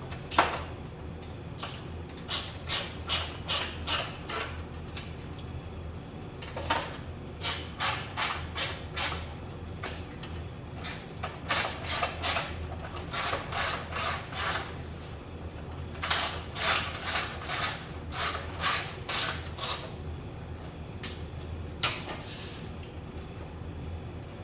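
Hand ratchet wrench turning bolts, its pawl clicking in short runs of strokes, about two to three a second, with pauses between the runs.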